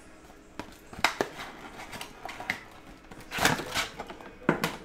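Cardboard trading-card box being handled and opened by hand: a few light clicks and scrapes, with a louder scraping rustle about three and a half seconds in.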